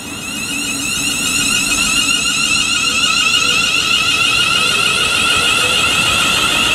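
London Midland Class 350 Desiro electric multiple unit passing: a steady high-pitched electric whine of several wavering tones from its traction equipment over wheel and rail rush. It grows louder over the first two seconds as the train comes alongside, then holds steady.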